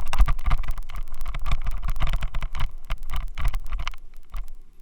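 Xiaomi Yi action camera rattling in a loose helmet mount: a rapid, irregular clatter of clicks over a low rumble, easing off briefly near the end. The rattle and vibration come from the helmet mount.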